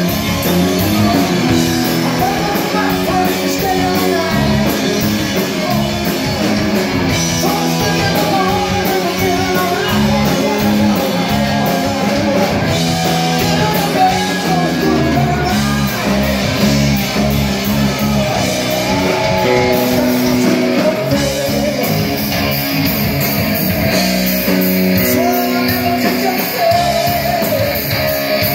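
Live rock band playing loudly: electric guitar, bass guitar and drum kit, with a singer's voice over them.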